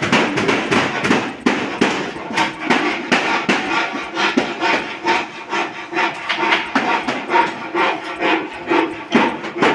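Rhythmic scraping and knocking of construction work on the PVC panelling, about two strokes a second.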